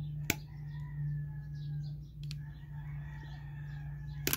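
Birds chirping in the background over a steady low hum, with two sharp clicks, one just after the start and one at the very end.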